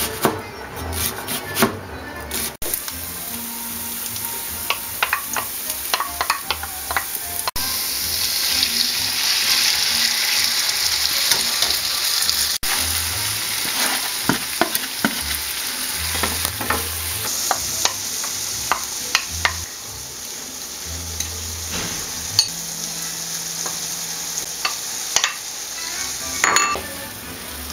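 Julienned vegetables sizzling in a frying pan, stirred with a wooden spatula that scrapes and taps against the pan. Near the start, a knife chops onion on a plastic cutting board.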